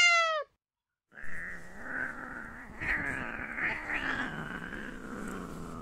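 A short pitched tone at the very start, then a cat's long, drawn-out growling yowl that swells a few times and slowly sinks in pitch: a threat call from a cat squaring off against another cat.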